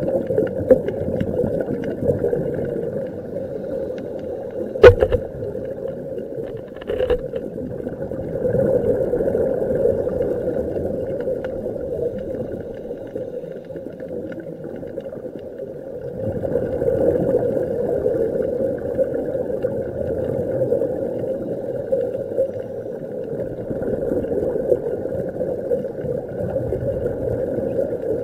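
Muffled underwater noise picked up through a camera's waterproof housing: a steady hum that swells and fades every several seconds, with a sharp click about five seconds in and a fainter one about two seconds later.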